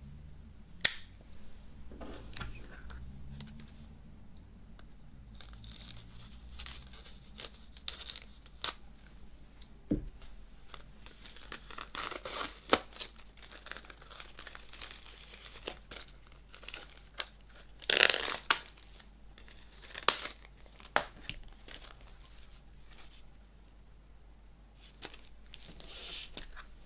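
Plastic shrink-wrap being torn and peeled off a cardboard CD sleeve, crinkling and crackling in fits and starts, with a sharp tap about a second in and a loud burst of crinkling about two-thirds of the way through.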